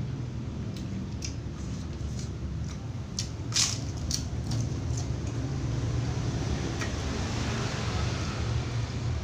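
Close-up eating sounds: chewing with wet squishes and scattered sharp crunches, one crunch about three and a half seconds in louder than the rest.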